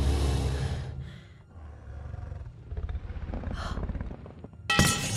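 Large dragon's low, rumbling growl-like breath, loud at first and then dropping to a quieter rumble. A sharp metallic clang rings out near the end.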